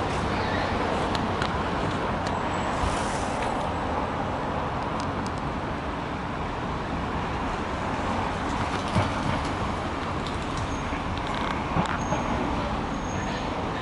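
Steady outdoor background noise like distant road traffic, with a few faint high chirps.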